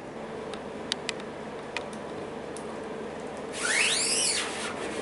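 A few light clicks and knocks from handling a wooden screen-printing frame, then a loud high squeak about three and a half seconds in, lasting about a second, that rises and falls in pitch. A steady low hum runs underneath.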